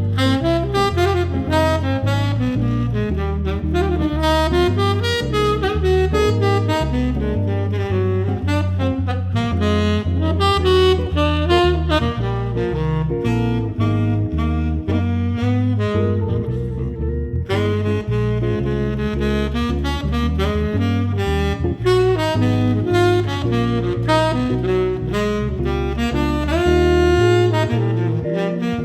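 Background music led by a saxophone over a walking bass line, jazz-like, with no waterfall sound standing out.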